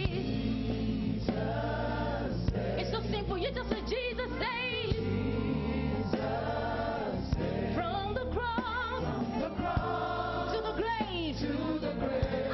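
Gospel praise-and-worship music: singers with a backing band of bass, keyboards and drums.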